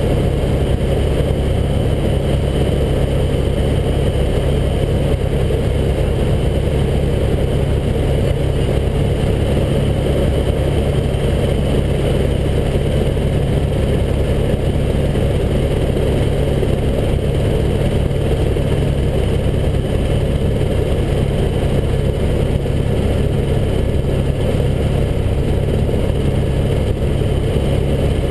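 Helicopter in flight heard from inside the cabin: rotor and engine running steadily, a loud, even noise heaviest in the low end, with no change through the stretch.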